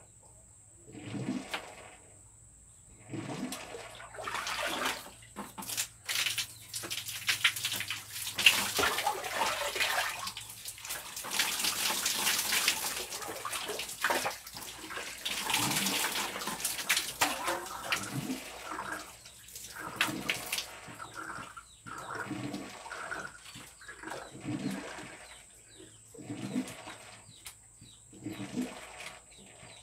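Water splashing and pouring in irregular bursts during a bath, nearly continuous and loudest through the middle stretch.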